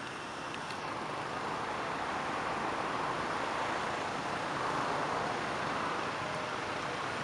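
Steady rushing outdoor noise, swelling slightly around the middle, with no distinct events.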